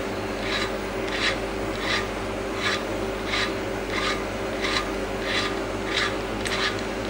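Neway valve seat cutter turned by hand on a valve seat of a Toyota 3S-GE cylinder head, rasping as it cuts the seat. The strokes come evenly, about three every two seconds.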